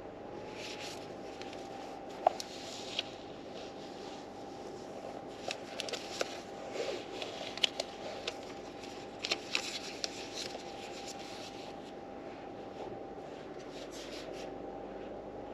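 Paper rustling and soft ticks as book pages are handled and turned, over a steady hiss and faint hum.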